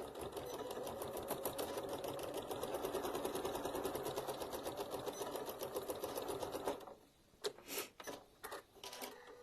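Sewing machine stitching a short seam at a steady, fast speed, stopping about seven seconds in. A few separate light clicks and taps follow.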